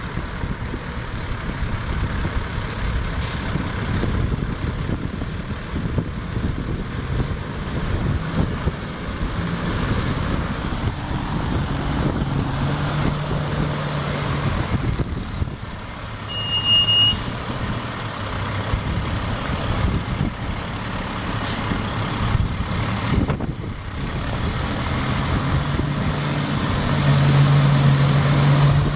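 International DT570 9.3-litre inline-six diesel engine of a fertilizer truck running as the truck drives slowly, the engine note swelling into a steadier, louder hum twice, the second time near the end. A single short beep sounds about halfway through.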